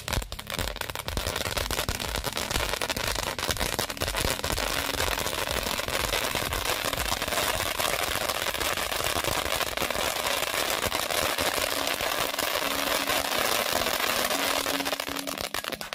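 Supreme-brand Hulk Warrior ground fountain firework spraying sparks: a steady loud hiss packed with dense crackling from its crackling stars.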